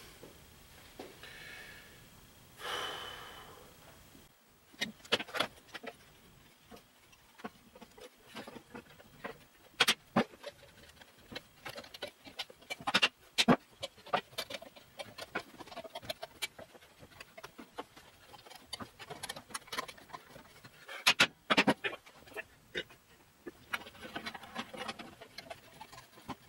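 Steel leaf-spring leaves and steel C-clamps clanking and clicking against each other on a wooden workbench as the restacked spring pack is clamped together, in irregular sharp knocks with louder clusters. Near the start, one loud heavy breath.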